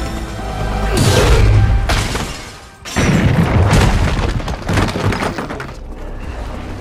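Film sound mix of music and effects: a rushing swell about a second in, a brief drop, then a sudden loud blast with booms and shattering that eases off near the end.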